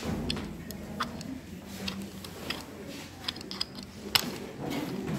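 Chalk on a blackboard while numbers are written: a string of short, irregular ticks and taps, the sharpest about four seconds in as a line is drawn.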